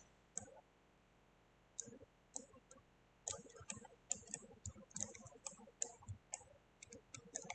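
Computer mouse clicking: faint, irregular clicks, a few at first and then coming thick and fast from about three seconds in.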